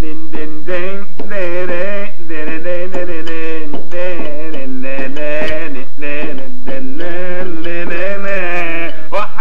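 A man singing a song in Arabic, with long wavering held notes and ornamented melodic turns.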